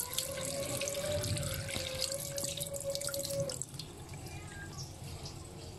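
Tap water running into a stainless steel sink and splashing over a fish held under the stream as it is rinsed clean. A steady tone runs along with the water until about three and a half seconds in, when it stops and the splashing gets quieter.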